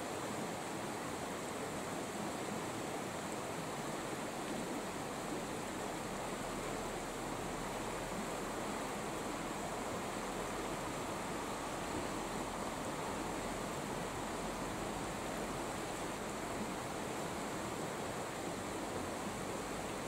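Mountain stream running steadily over shallow rocky riffles, an even rushing of water.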